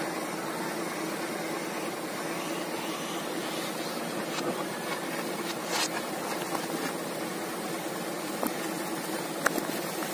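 Dump truck engine running steadily at idle, with a few short metal knocks as the tailgate is unlatched and swung open.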